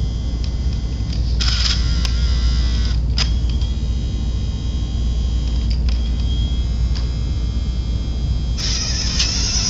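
Small electric drive motor and gears of a 1980s Radicame radio-controlled camera car whirring in two short runs, about a second and a half in and again near the end, with a few light clicks, over a steady low rumble.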